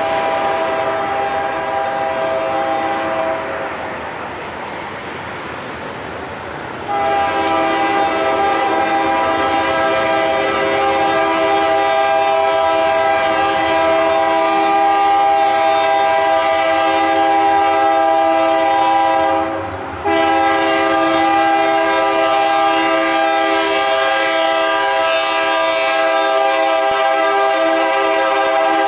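Air horn of a Ferromex GE Super 7-MP diesel locomotive, leading the train, sounding a steady chord in three blasts: one of about three seconds, then after a short pause a very long blast, broken once about two-thirds of the way through before sounding again to the end. This is the warning for a street grade crossing as the train approaches, with the rumble of the train underneath.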